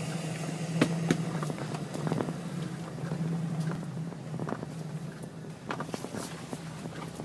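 Jeep Wrangler engine running steadily at low speed while crawling a wooded trail, with scattered clicks and knocks from the Jeep rolling over sticks and debris.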